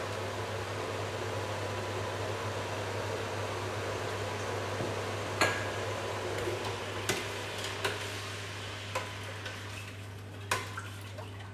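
A steady hiss with a low hum, then from about five seconds in a handful of sharp metal clinks as a ladle knocks against a stainless steel pot of warming milk.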